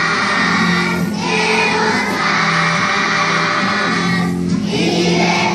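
A choir of young schoolchildren singing a song together, with short breaks between phrases about a second in and again past the four-second mark.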